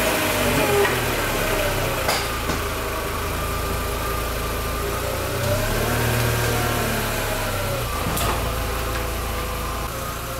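2001 Volkswagen Golf MK4's 2.0-litre four-cylinder engine idling steadily just after being started, its note rising and falling gently once around the middle.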